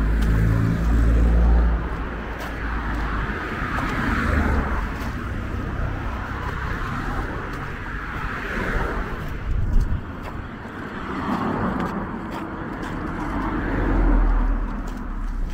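Road traffic: cars passing, the noise swelling and fading several times, with a low rumble in the first couple of seconds and a single sharp click about ten seconds in.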